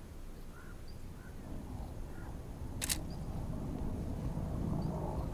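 A single camera shutter click about three seconds in, over a low steady ambient rumble.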